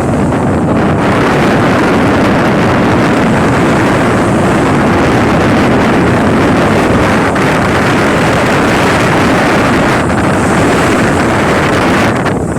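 Loud, steady wind noise buffeting the microphone, easing slightly near the end.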